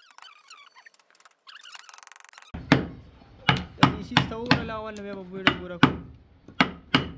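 A steel wood-carving chisel paring soft wood by hand with a light, high scraping; then, about two and a half seconds in, a mallet driving the chisel into the wood in sharp knocks with a short ring, about nine strikes in an uneven rhythm.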